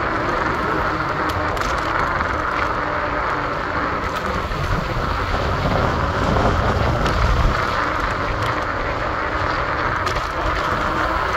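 Steady city street noise: traffic and a low rumble, which swells briefly about seven seconds in.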